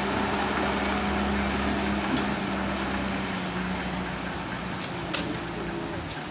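Diesel engine of a tractor unit hauling a shipping-container trailer, running steadily at low speed as the rig manoeuvres, its hum dropping away about halfway through and the sound fading as the truck moves off.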